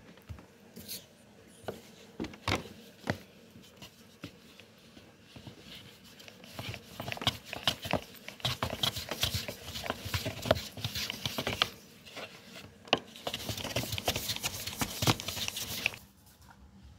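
Thin wooden rolling pin rolling pastry dough out on a floured wooden board: a dense run of rapid clicks and rubbing as the pin goes back and forth, starting about six seconds in and stopping about a second before the end. Before it, a few scattered taps as the dough is pressed flat by hand.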